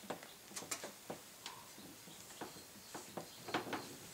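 Scattered light clicks and ticks of metal parts being handled while a driveshaft U-joint and its retaining clips are worked on, with a few slightly louder clicks near the end.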